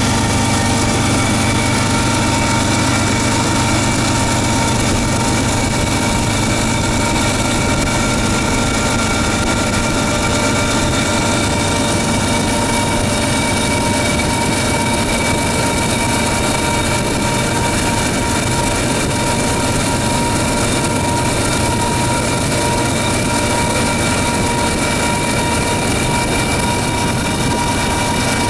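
GE ES44AC diesel-electric locomotive running steadily under power. A low engine rumble sits under a steady high whine, mixed with the road and wind noise of a car pacing alongside.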